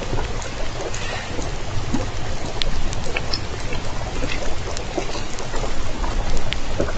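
Underwater hydrophone background noise: a steady hiss over a low rumble, with a few scattered faint clicks and no clear orca calls.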